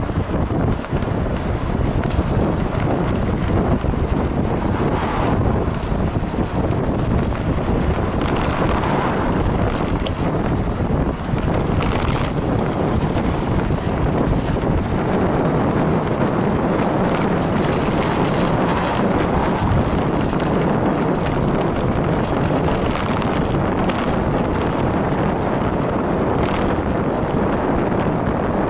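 Steady wind buffeting the microphone of a camera on a moving bicycle, mixed with rumble from the ride on asphalt, and a few short rattles or knocks along the way.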